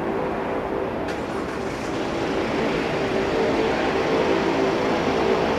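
Steady hum of a taxiing turboprop airliner's engines and propellers, with a held drone underneath that grows a little louder from about halfway through as the aircraft comes closer.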